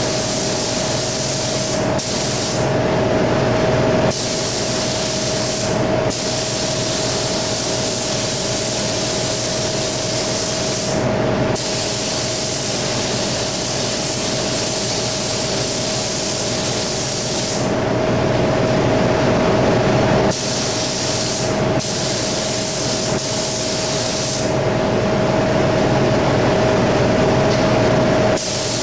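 Gravity-feed HVLP spray gun with a 1.5 mm tip spraying single-stage paint: a steady airy hiss in long passes, with the hiss dropping away briefly about six times as the trigger is let off between passes. A steady hum runs underneath throughout.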